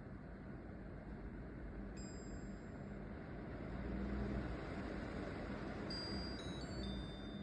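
Air purifier fan running steadily with a low hum, just after its fan impeller was replaced to cure an abnormal noise. A short electronic beep about two seconds in and a quick stepped chime of falling tones near the end come from the unit's control panel.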